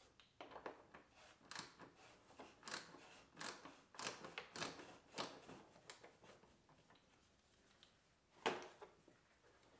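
Faint, irregular clicks and ticks of a T25 Torx driver turning a screw out of the front bumper trim, about two a second at first, with one louder click near the end.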